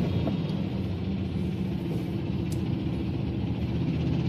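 Steady low rumble of engines in slow, close-packed road traffic, with vehicles idling or creeping at a junction.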